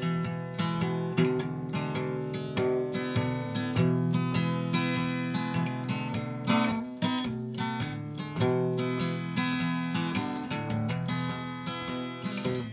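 Solo acoustic guitar strumming chords steadily in an instrumental break of a slow country song, with no singing.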